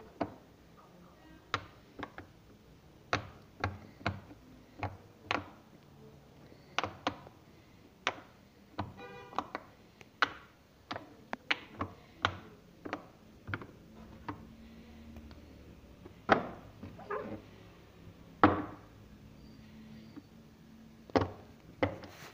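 Silicone pop-it fidget toys being pressed by fingers: irregular soft pops as the bubbles are pushed through, about one or two a second.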